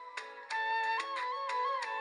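Instrumental background music: a high melody moving in steps over a steady beat. It dips briefly at the start and returns in full about half a second in.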